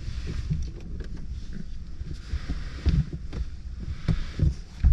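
Handling noise inside a pickup truck's cab: clothing and gear rustling with several dull thumps over a low rumble as the occupants shift to get out.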